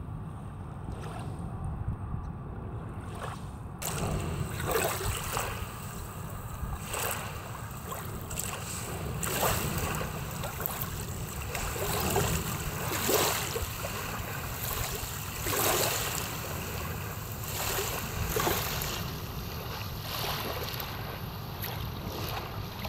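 Small wake waves from a passing speed boat washing up onto a pebbly shoreline, starting about four seconds in and coming as a splash and wash every second or two. A steady low rumble runs underneath.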